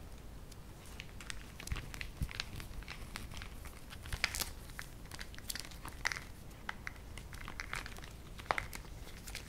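Laptop power adapter cord and plug handled close to a microphone: rustling and irregular light clicks and ticks as the coiled cable is turned in the hands, with a few sharper clicks along the way.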